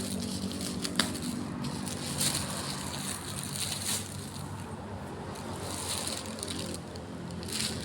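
Packaging being handled and opened, crinkling and rustling in irregular bursts, with a sharp click about a second in.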